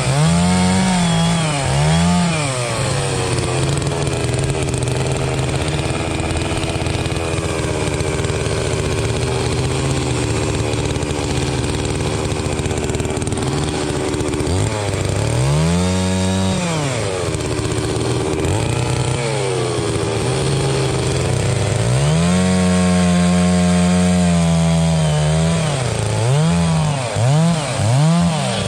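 Holzfforma two-stroke chainsaw engine revving up and down repeatedly. It holds high speed for a second or two near the middle and for about three seconds later on, then gives a few quick blips of the throttle near the end.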